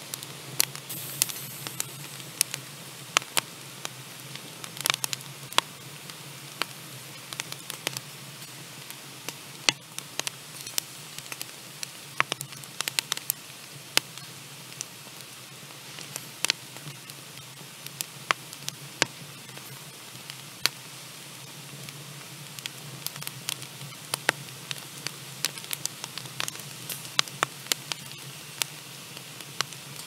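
Wood fire in a fireplace crackling: irregular sharp pops and snaps, several a second, over a steady hiss.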